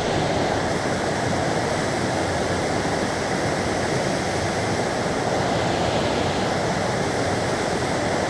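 Small mountain stream rushing steadily.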